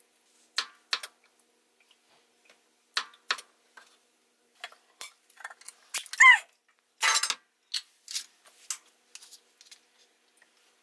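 Kitchen handling sounds: a series of short taps and clicks from a knife, bacon slices and a tin of sweet corn on a wooden cutting board and metal pan, with corn kernels dropping onto the board. About six seconds in comes a brief falling squeak, the loudest sound, from the metal tin being scraped or handled.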